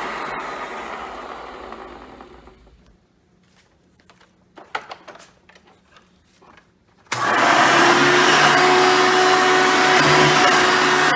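Hoover Soft & Light Supreme vacuum cleaner with its 7-amp motor switched off and winding down, falling in pitch over about three seconds. A few light clicks and knocks follow in the quiet. About seven seconds in, it is switched back on and starts abruptly into a steady run.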